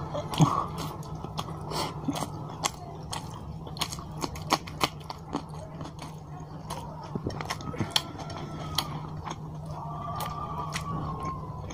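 Close-miked chewing of curry-soaked rice and fish eaten by hand: irregular wet mouth clicks and smacks, the loudest about half a second in, over a steady low hum.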